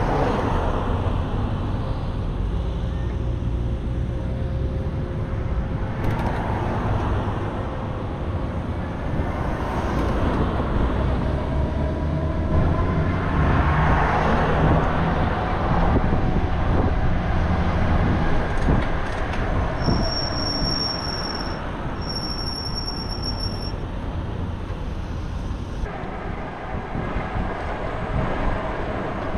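Steady low wind rumble and road traffic noise, as picked up by a camera on a moving bicycle. Two high, steady tones sound one after the other, each lasting one to two seconds, about two-thirds of the way through.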